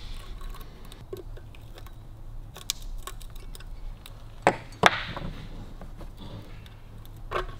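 Small metallic clicks and clinks of a steel circlip being worked into the bearing housing of a Harley-Davidson WLA star hub with circlip pliers, with two sharper clicks a little over halfway through, the second ringing briefly.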